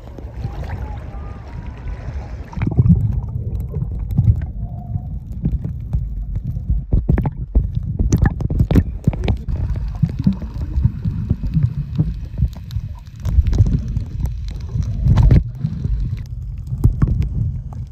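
Water splashing at the surface for about the first three seconds, then the muffled sound of the phone submerged in its plastic waterproof cover: a low rumble of moving water with scattered knocks and clicks against the cover.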